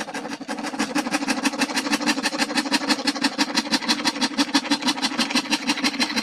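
A small bench-mounted scroll saw cutting a thin PVC sheet: a steady motor hum under a rapid, even chatter of blade strokes.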